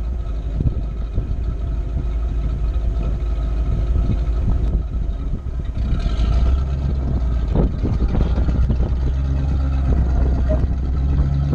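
Jeep engine running at low crawling speed over rock, a steady low rumble whose pitch rises slightly about six seconds in and again near the end.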